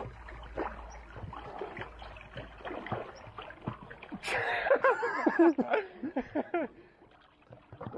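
Lake water splashing and lapping around swimmers. About four seconds in, a man gives loud wordless shouts for a couple of seconds.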